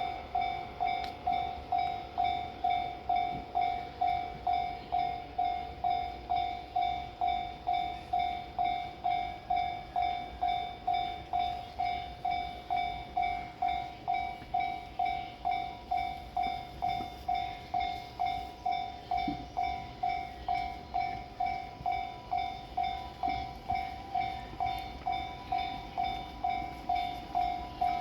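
Japanese railway level crossing alarm ringing steadily, its electronic clang repeating about twice a second while the crossing is closed for a JR East E353 series limited express train. The train's low rumble runs underneath the bell.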